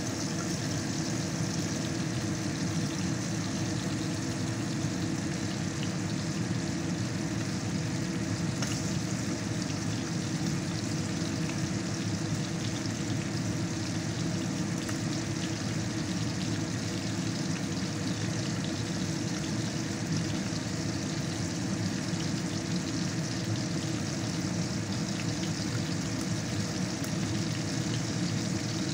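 Steak frying in a pan on the stovetop: a steady sizzling hiss with faint fine crackles over a low, even hum.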